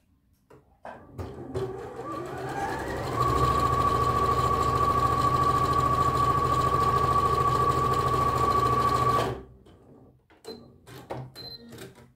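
Bernina B 38 computerized sewing machine stitching a fabric seam. It speeds up over about two seconds, runs steadily with a high whine, and stops abruptly. A few light clicks follow near the end.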